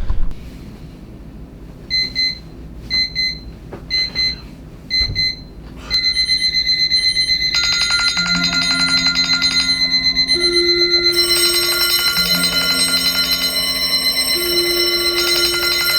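Several alarm clocks going off one after another. First comes a single alarm's short double beeps about once a second; from about six seconds in a steady high tone and more beeping alarms join, then a low two-note ringing, until many alarms sound over each other at once.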